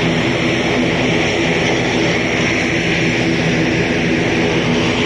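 Airbus A320's jet engines running steadily at a distance as the airliner turns on the runway: an even rushing whine with a low hum beneath it.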